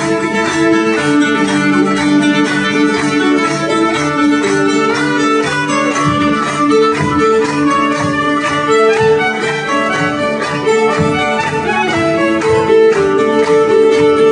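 Folk band playing a morris dance tune live, with fiddle prominent over held notes and a steady beat.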